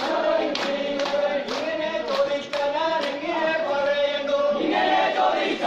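Group of men singing a Poorakkali song together in unison, with sharp hand claps keeping the beat roughly twice a second.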